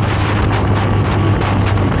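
Zontes 703RR sport motorcycle's inline-three engine running at a steady pitch on the move, with heavy wind noise on the microphone.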